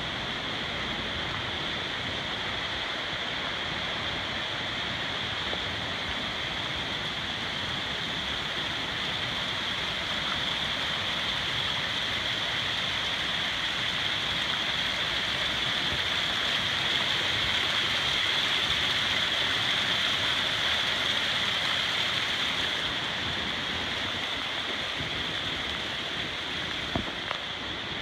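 A small forest creek running over rocks, a steady rush of water that grows louder about halfway through and fades again. A couple of brief knocks near the end.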